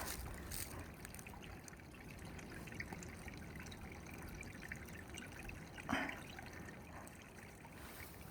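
Faint trickle of a small mountain stream, with a brief soft knock about six seconds in.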